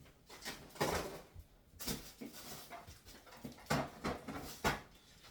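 Household items being handled in a kitchen: a few short rustles and knocks, the sharpest about a second in and again near the end.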